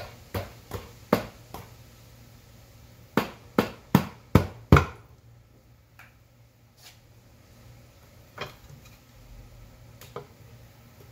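Hammer tapping a bolted aluminium engine housing cover on a Kawasaki Vulcan 750 to loosen it where it sticks to its gasket. Five sharp taps about 0.4 s apart, a short pause, then five louder taps in quick succession about three seconds in, followed by a few lighter, spaced-out single taps.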